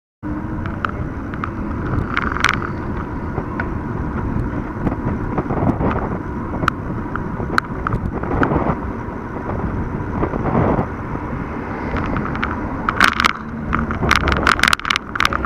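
Riding noise picked up by an action camera mounted directly on a mountain bike's handlebars: steady wind and tyre rumble that cuts in abruptly at the start, with scattered rattles and clicks from the mount over bumps and a dense run of knocks near the end.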